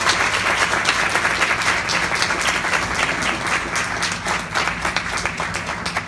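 Audience applauding with dense clapping, slowly dying down toward the end.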